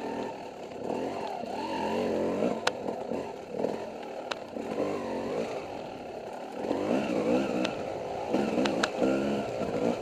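Dirt bike engine revving up and falling back again and again as the throttle is worked on and off, with a few sharp clicks and knocks from the bike over the rough trail.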